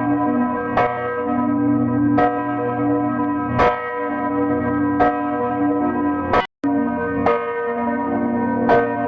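Church bell tolling, struck about once every second and a half, each stroke ringing on into the next. The ringing drops out for a split second about two-thirds through, then the strokes carry on.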